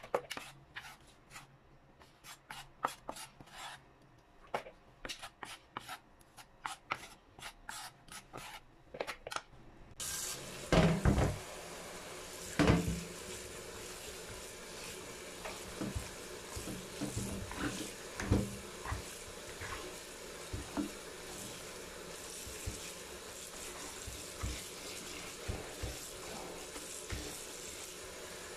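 A knife chopping spinach on a wooden cutting board, quick irregular taps, for about the first ten seconds. Then a tap runs steadily onto chopped spinach in a plastic colander in a steel sink, with hands rubbing the leaves and a few knocks of the colander.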